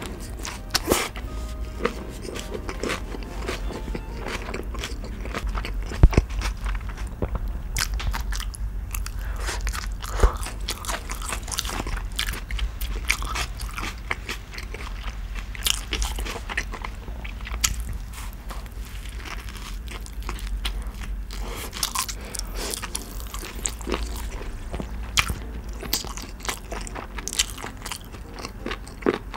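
Close-miked eating of a bulgogi burger: wet chewing and mouth sounds with many small sharp crunches, and a few louder bites.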